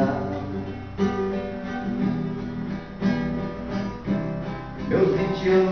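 Acoustic guitar being strummed, a new chord struck about once a second and left ringing.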